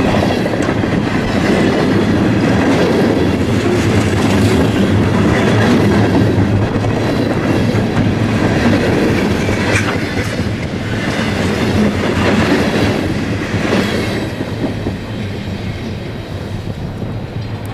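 Freight train cars rolling past, wheels clicking over rail joints over a steady rumble, easing off over the last few seconds.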